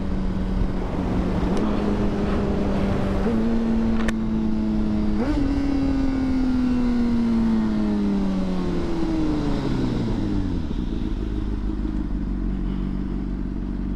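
A 2009 Honda CBR600RR's inline-four engine slows for a stop. It is downshifted three times, each time jumping up in pitch, about one and a half, three and five seconds in. The revs then fall away steadily and settle to a low idle from about eleven seconds.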